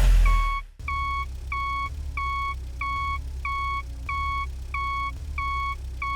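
A loud rumble cuts off under a second in. It gives way to a steady series of electronic beeps, about ten evenly spaced pitched tones at roughly one and a half per second, over a low hum.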